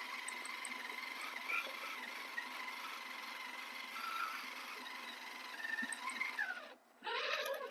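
Electric motor and gear drivetrain of a Redcat Scout RC crawler whining steadily as it drives. Near the end the whine falls in pitch, cuts out briefly, then comes back as a louder, rougher burst.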